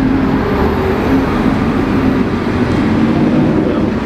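Ferrari SF90 Stradale driving slowly through a tight turn, a steady low engine and road sound mixed with nearby traffic.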